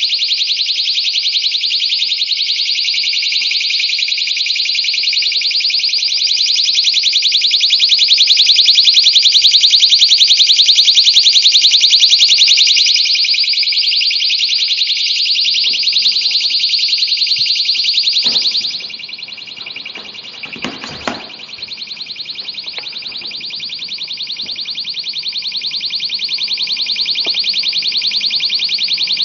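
Personal alarm shrieking: a loud, piercing high-pitched tone with a fast warble, running nonstop. About 18 seconds in there are a few knocks and the shriek turns sharply quieter and duller, muffled as the alarm is buried in insulation, then swells slowly again.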